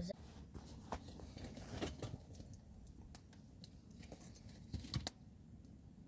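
Faint scattered clicks and light taps over a low steady rumble, the sharpest pair about five seconds in.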